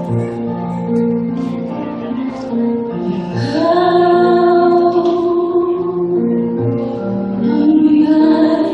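A woman singing a Tagalog love song into a microphone over instrumental accompaniment. The accompaniment plays alone at first; her voice comes in about three seconds in, gliding up into a long held note, and rises again into another held note near the end.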